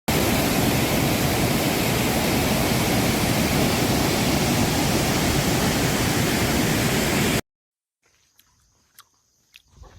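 Waterfall rushing: a loud, steady noise of falling water that cuts off suddenly about seven seconds in.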